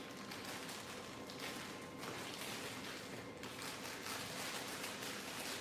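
Hair rustling in several short strokes as it is combed up and wound onto a small Velcro roller, over a faint steady hum.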